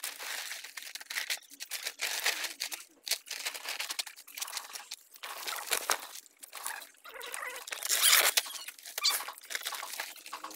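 Plastic sheeting, an old vinyl flex banner and sacking, rustling and crinkling as it is handled and spread out by hand, in irregular crackles with a louder rustle about eight seconds in.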